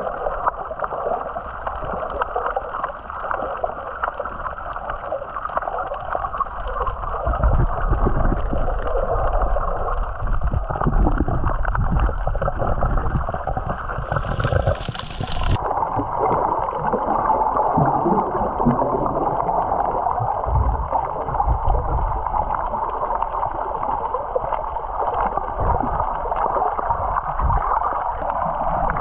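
Water rushing and splashing along the hull of a moving boat, with low rumbling gusts from about seven seconds in; the sound changes abruptly about halfway through.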